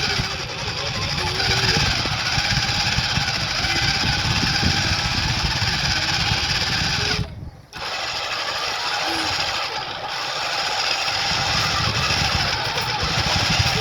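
Continuous rattling, rumbling noise of a toy car driving with a camera mounted on it, its wheels and body vibrating against the microphone. The noise cuts out for about half a second roughly seven seconds in, then resumes.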